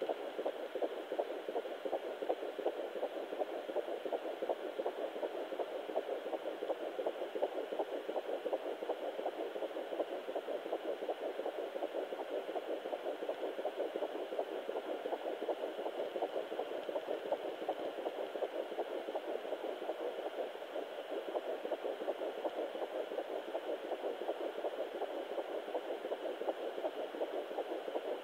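Fetal heartbeat at 12 weeks heard through a Sonoline B handheld fetal Doppler's speaker: a fast, even pulse of noise over a steady hiss.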